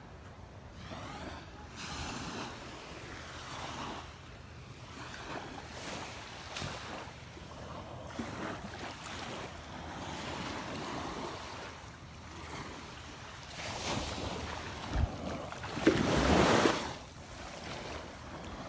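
Small, gentle waves lapping and washing up a sandy shoreline, the swash swelling and fading every two seconds or so, with a louder rush near the end.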